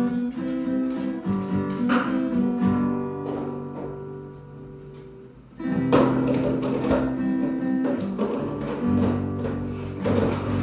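Acoustic guitar strummed and picked, chords ringing on. The playing dies away until about five seconds in, then comes back with a loud strum about six seconds in and more strong strums near the end.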